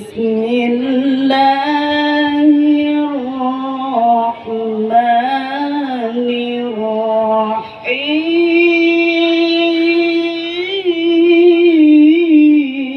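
A reciter's high voice chanting Qur'anic recitation in the melodic qiro'ah style. Long held notes with wavering melismatic ornaments come in three phrases, with brief breaks for breath about four and eight seconds in. The last phrase is pitched higher and sung louder.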